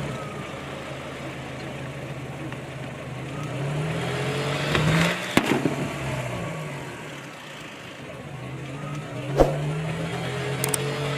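Kia car's engine running, its pitch rising and falling as it is driven at low speed. Two sharp cracks ring out, about five seconds in and again about nine seconds in.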